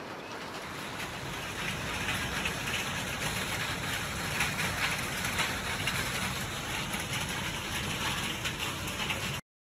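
Heavy rain pouring down, a dense steady hiss of drops that grows louder about two seconds in and cuts off suddenly just before the end.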